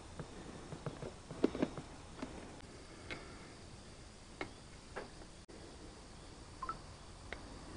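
Faint, irregular small clicks and ticks around a motorcycle engine, roughly a second apart, with a slightly louder pair about one and a half seconds in.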